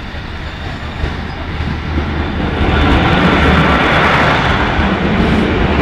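Two coupled Class 153 diesel railcars approaching and passing close by, their diesel engines and wheels on the rails growing steadily louder until the train is running past at full loudness about three seconds in.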